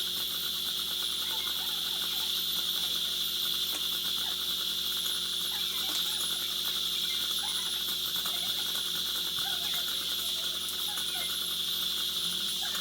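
Dental high-speed handpiece drilling a tooth: a thin, very high whine whose pitch wavers up and down as it cuts, over a steady hiss of air and suction.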